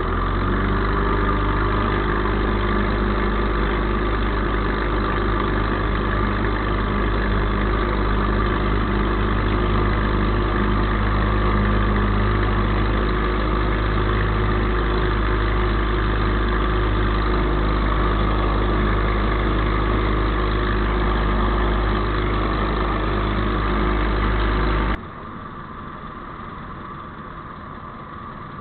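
Ultralight aircraft engine and propeller running steadily at high power through the takeoff roll, a loud, unchanging drone. About 25 seconds in it cuts abruptly to a much quieter, steady engine drone.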